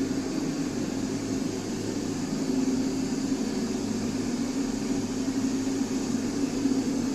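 Steady machine drone: an even low hum with a hiss above it, unchanging in pitch and level.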